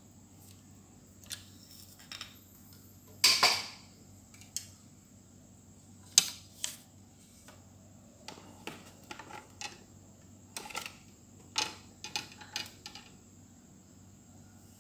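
Scattered clicks and knocks of a two-piece fishing rod being handled and laid across a stainless steel kitchen scale to be weighed. A louder clatter comes about three seconds in and a sharp knock about six seconds in, followed by a run of lighter clicks.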